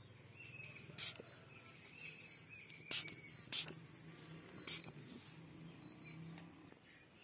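Faint insect buzzing and chirping, with four short sharp clicks spread through it.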